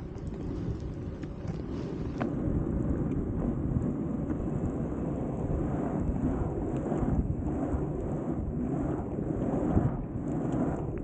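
Longboard wheels rolling on rough asphalt: a steady low rumble, mixed with wind buffeting the microphone.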